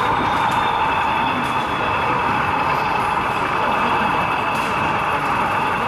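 Sound decoder in an OO gauge model of the Bulleid 1-Co-Co-1 diesel 10203 playing a steady diesel engine running sound through the model's small loudspeaker.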